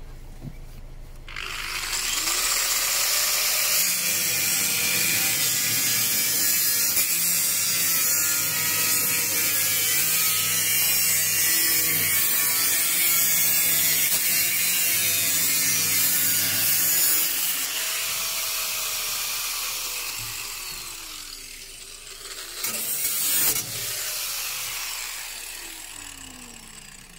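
Small angle grinder cutting through the steel back plate between a car's boot and cabin: it starts about a second in and grinds steadily for some fifteen seconds, then is released and spins down with a falling whine. A short second burst of cutting comes near the end before it winds down again.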